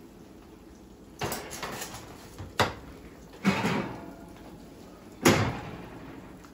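A foil-lined metal sheet pan pulled from an oven and set down on gas-stove grates, with the oven rack sliding and the oven door shut: four knocks and clatters, the last about five seconds in the loudest.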